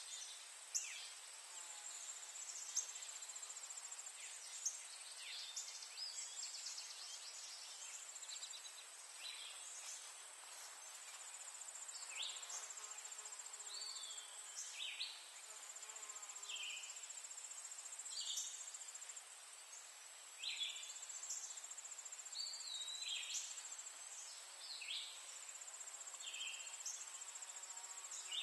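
Faint summer insect chorus: a steady high-pitched trill of singing insects such as crickets, with short high chirps repeating every second or two over it.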